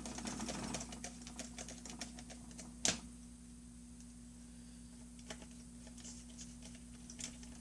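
Small Phillips screwdriver tightening tiny screws on a laptop LCD panel bracket: a run of light quick clicks, one sharper click about three seconds in, then a few scattered clicks, over a faint steady hum.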